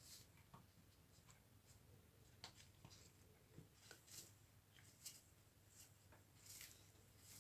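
Near silence with faint, scattered clicks and light scrapes of small parts being handled by hand.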